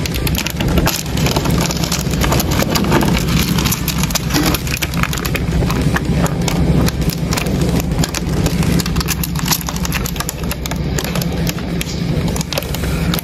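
Two giant stag beetles grappling on bark: a dense, continuous scratching and clicking of their claws and mandibles scrabbling on the wood, heard close up over a steady low hum.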